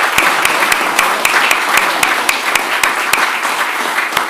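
Audience applause filling a room: many people clapping at once, with single sharp hand claps close to the microphone standing out about three or four times a second.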